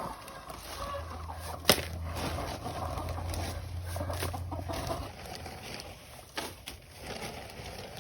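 Chickens clucking, with a sharp knock about two seconds in and a low steady hum through the first half.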